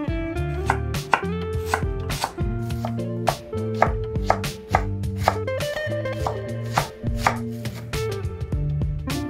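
Kitchen knife chopping on a cutting board: sharp, irregular strokes about two a second, over background guitar music.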